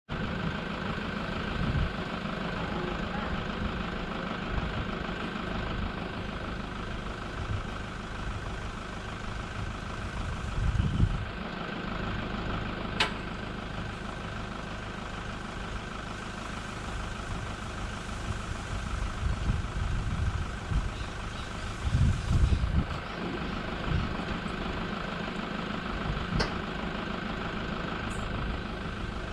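A motor vehicle engine idling with a steady hum. Two brief low rumbles come about 11 and 22 seconds in, and a sharp click about 13 seconds in.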